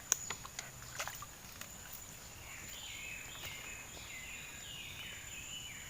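Riverside outdoor ambience: a steady high insect whine, a few sharp clicks and knocks in the first second and a half, and from about halfway on a run of stepped, falling animal calls.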